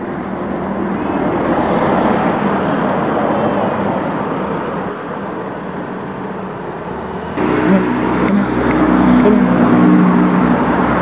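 Road traffic going by: a steady rush of passing vehicles that swells about two seconds in. About seven seconds in, the sound switches abruptly to a louder, lower engine rumble with a steady hum.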